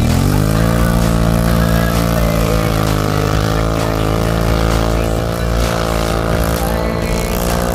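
ATV (quad) engine revving hard as it ploughs through deep powder snow; the pitch climbs quickly in the first second, then holds steady at high revs.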